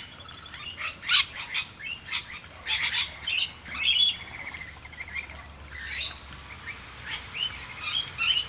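Feeding flock of rainbow lorikeets and noisy miners calling: many short, sharp chirps and squawks overlapping in a busy chatter, loudest about a second in.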